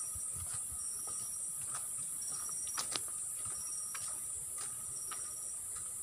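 Steady high-pitched insect chorus, with short high chirps repeating about once a second and a few faint clicks.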